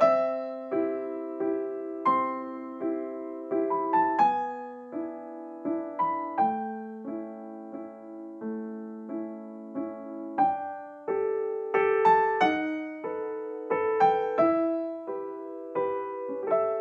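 Background music: a gentle solo piano melody over held chords, each note struck and fading, with a few quick runs of high notes.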